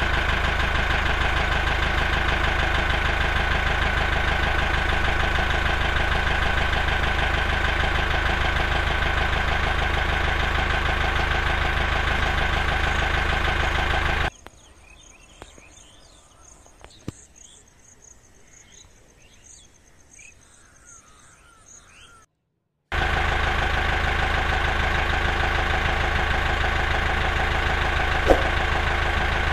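Tractor-style engine running steadily with an even pulse. About 14 seconds in it cuts out for roughly eight seconds of quieter outdoor sound with birds chirping, then a moment of silence, and the engine sound comes back.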